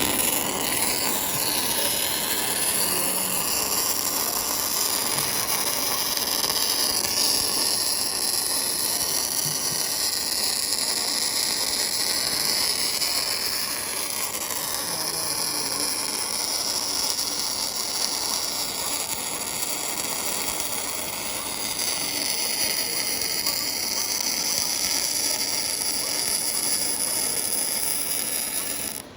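MIG (CO2-shielded) welding arc crackling and sizzling steadily as a bead is laid, then cutting off suddenly when the torch trigger is released.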